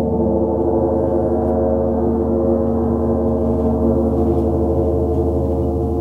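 A 36-inch (90 cm) KI gong ringing on after being played: a dense cluster of steady tones with a regular wavering in the low ones, slowly dying away.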